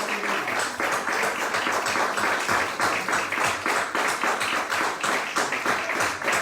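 A church congregation clapping and applauding in praise, a dense, steady patter of many hands.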